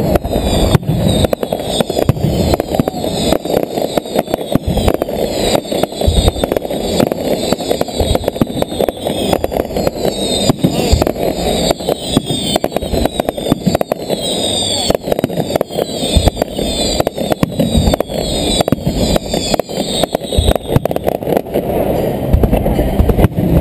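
Aerial fireworks display going off in a rapid, continuous barrage of bangs and crackles, with repeated high falling whistles through most of it.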